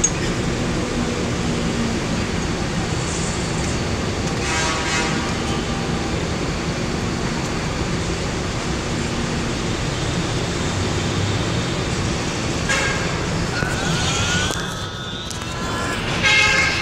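Steady noise of an MRT train car standing at an elevated station platform, with air-conditioning and platform hum. A short pitched tone sounds about four seconds in. Near the end a gliding whine and a brief pitched tone come in, as another train moves alongside.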